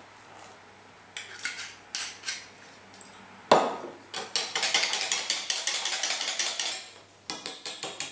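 Wire whisk beating crêpe batter in a bowl, rapid clicking strokes against the bowl's sides, with a short pause near the end. A few light clinks come first, then a single sharp knock a little over three seconds in as the bottle of spirits is set down on the counter.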